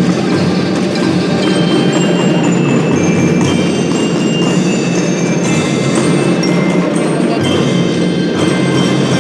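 Children's drum band playing: glockenspiel-type bell lyres ring out a melody of short high notes over continuous drumming.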